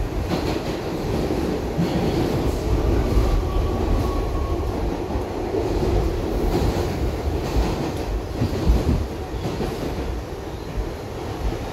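R62A subway car running through a tunnel, heard from inside the car: a steady low rumble of wheels on rail with scattered clicks of rail joints, and a faint brief whine about two seconds in.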